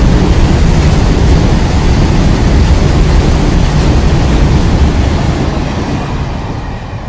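Long freight train of open-top wagons rolling past at close range, a loud steady rail noise with a heavy low end. It fades over the last couple of seconds as the end of the train, with its trailing locomotive, goes by.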